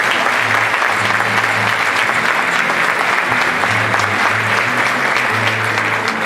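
Audience applause, loud and steady, over an acoustic guitar playing low held notes.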